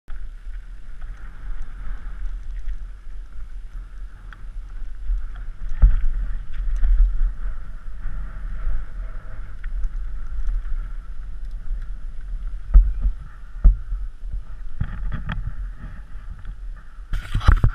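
Wind rush and low rumble on a helmet-mounted action camera during a downhill mountain-bike ride over a rough dirt trail. There are a few sharp knocks from bumps, and a louder clatter near the end.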